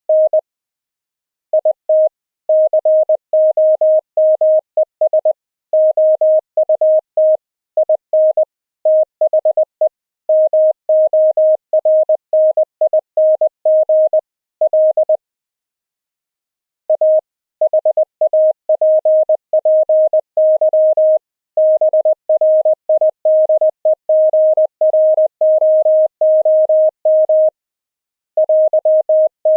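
High-speed Morse code (CW) as a single steady audio tone from a software keyer, received over an internet audio link and keyed rapidly in dots and dashes. It breaks off briefly about a second in, for about two seconds around the middle, and again near the end.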